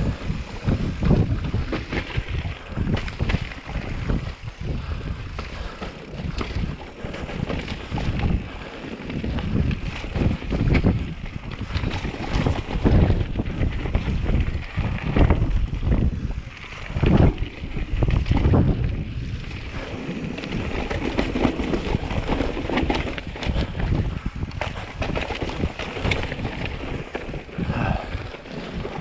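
Wind buffeting the microphone: an uneven low rumble that surges and eases in gusts every second or two.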